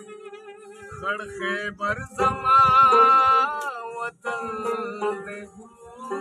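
A male voice singing a Pashto ghazal line with long, wavering held notes over sustained instrumental tones; the fuller band accompaniment comes back in about four seconds in.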